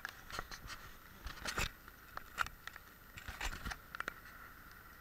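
Irregular clicks, knocks and scuffs close to the microphone of a small action camera carried by someone walking, over a faint steady whine.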